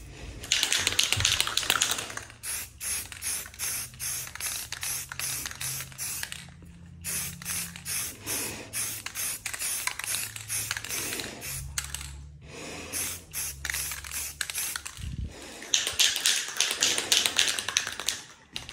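Aerosol spray can of primer spraying a car's rear wing in bursts: a long hiss about half a second in, then a run of short, quick spurts, and another long hiss near the end.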